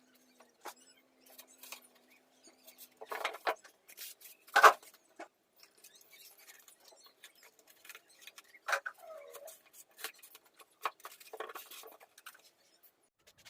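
Scattered small clicks, taps and scratching of objects being handled, with one sharp knock about four and a half seconds in. A faint steady hum stops about three seconds in.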